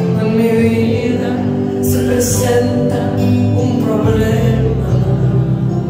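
Church worship music: singing over held, sustained chords.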